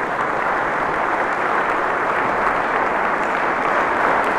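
Audience applauding, a steady sound of many hands clapping.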